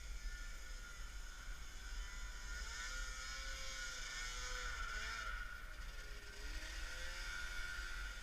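Vintage Ski-Doo snowmobiles' two-stroke engines running, their pitch rising and falling as the throttles are worked.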